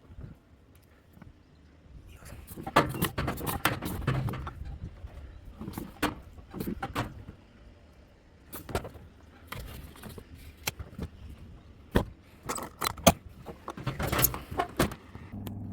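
Irregular metallic clinks, rattles and sharp clicks in bursts, from hand tools and metal parts being handled during air conditioner removal and installation work.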